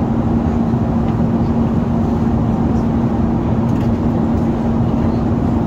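Steady cabin noise inside an Airbus A380 in flight: an even rush of airflow and engine noise with a constant low hum.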